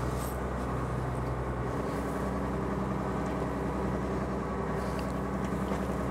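A fishing boat's engine running steadily, a low hum with a shift in its note about two seconds in.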